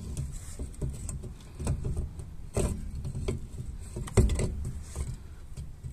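Metal clinks and knocks of a painted metal multi-hole adapter wheel being turned and shifted against a car's wheel hub to line its holes up with the studs, the loudest knock about four seconds in, over a low rumble.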